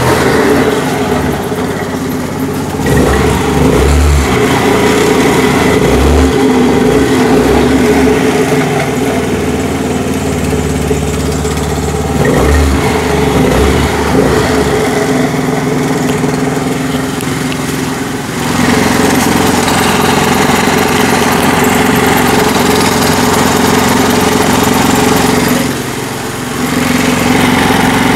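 Honda Activa 4G scooter's single-cylinder four-stroke engine running and being revved in steady holds, easing off and picking up again a couple of times, with the abnormal noise through the belt-drive clutch side that is put down to a damaged speed (drive) pulley.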